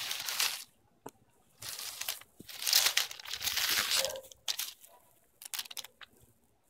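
Bubble wrap and plastic packaging crinkling and rustling as they are handled, in bursts, the longest from about one and a half to four seconds in, then a few light clicks.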